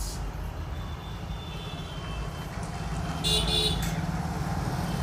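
Steady low background hum, with a short, high-pitched horn toot about three seconds in.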